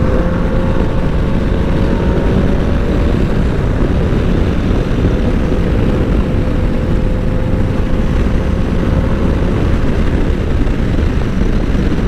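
Honda NC750X motorcycle cruising at speed: steady wind rush on the camera microphone over the parallel-twin engine's low drone, with a faint steady whine that creeps slightly up in pitch.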